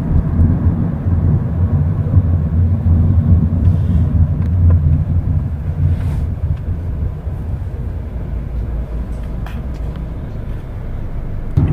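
Steady low rumble of a moving car's engine and tyres heard from inside the taxi's cabin, a little quieter in the last few seconds.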